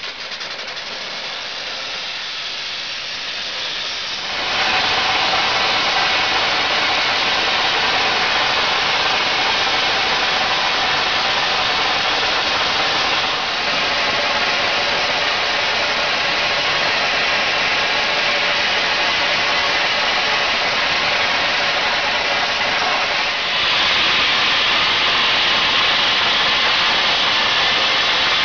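Air carbon arc gouging torch: a steady hiss of compressed air, then about four seconds in the arc is struck and the loud, steady noise of the arc and air jet gouging the steel runs on, stepping up a little louder near the end.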